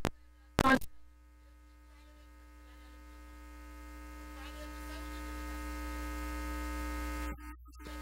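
Steady electrical mains hum from a microphone and sound system, with a few steady tones above it, slowly growing louder. A short burst comes about half a second in, and the hum drops out near the end.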